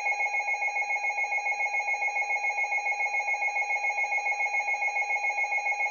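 Emergency Alert System two-tone attention signal: a loud, steady, harsh electronic tone with a fast even flutter. It heralds the reading of a weather warning.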